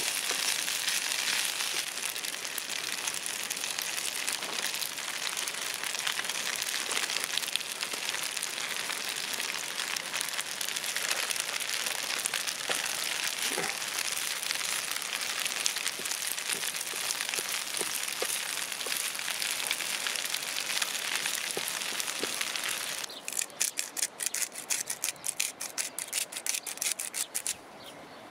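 Steady hiss and sizzle of pasta and onions frying in a pan on a Trangia camping stove, with a wooden spoon stirring through it. Near the end the hiss stops and a spice mill grinds in quick, regular clicks.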